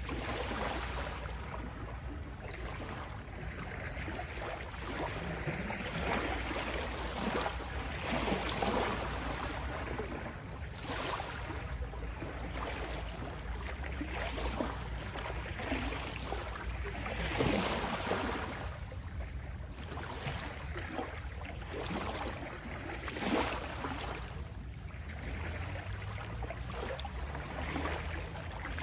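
Small sea waves lapping at the shore, swelling and washing in every few seconds over a steady wash of water.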